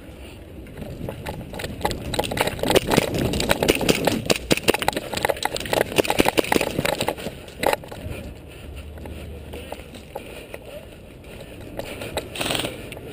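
Footsteps running fast over dirt ground for several seconds, then a single sharp snap.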